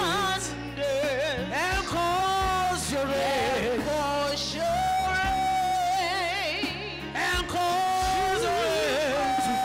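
Gospel worship song sung with a wavering vibrato and long held notes over instrumental backing.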